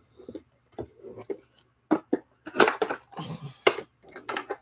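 A boxed Funko Pop vinyl figure and its clear plastic box protector being handled: irregular rustles, taps and clicks of cardboard and plastic, the sharpest clicks about two seconds in and again near four seconds.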